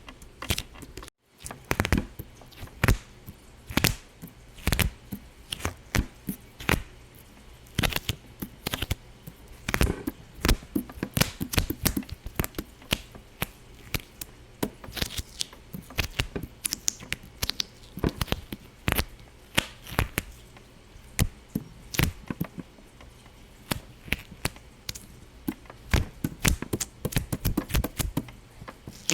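Irregular sharp pops and clicks, a few each second, sometimes in quick clusters, with a brief break about a second in.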